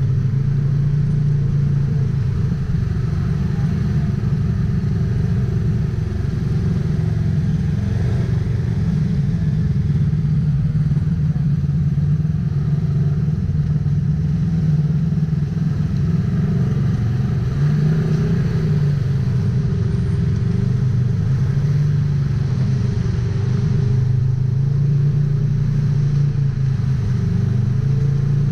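Polaris RZR XP 1000 side-by-side's twin-cylinder engine running while driving off-road, its pitch gently rising and falling with the throttle.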